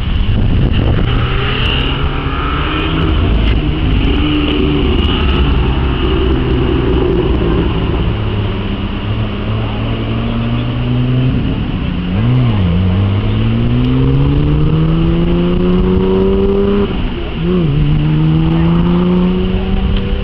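Sports car engines running as a procession of cars drives by. In the second half one engine accelerates with a steadily rising pitch, broken by two quick gear changes, one about twelve seconds in and another about five seconds later.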